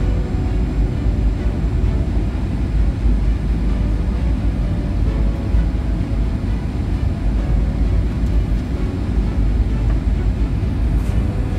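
Steady low rumble of a jet airliner's cabin noise, engines and rushing air heard from inside the cabin during the descent on final approach.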